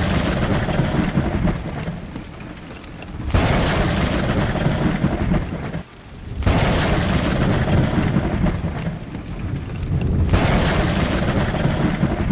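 Loud continuous rushing, rumbling noise that swells and eases every few seconds and drops out abruptly for a moment about six seconds in.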